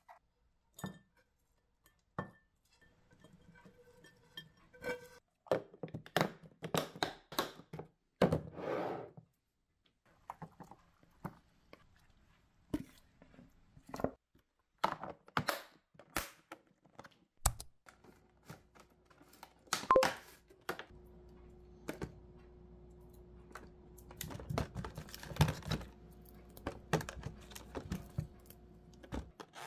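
Kitchen handling sounds: glass and plastic food containers and lids knocked and set down on a countertop, food tipped into a plastic tub, and a plastic punnet crinkling. A faint steady hum joins after about eighteen seconds.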